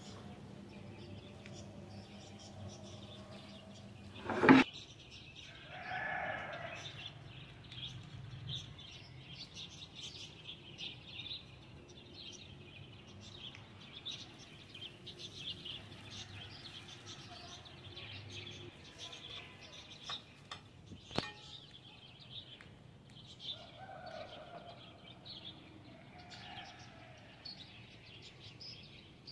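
Small birds chirping on and off in the background, with a sharp click about four and a half seconds in and a fainter one around twenty-one seconds.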